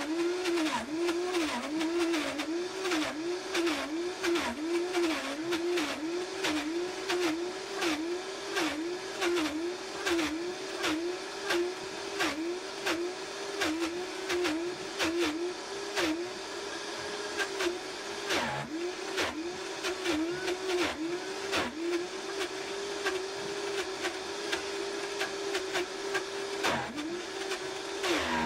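Vitamix blender motor running on high, grinding roasted peanuts into peanut butter while the tamper pushes them into the blades. Its pitch sags about one to two times a second as the thick nut paste loads the motor, then holds steadier near the end: the change in the motor's sound that marks the peanut butter starting to flow freely through the blades.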